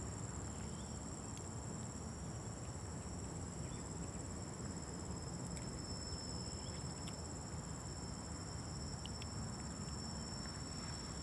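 Insects in the hillside forest shrilling steadily in two unbroken high-pitched tones, over a low steady rumble, with a few faint short chirps.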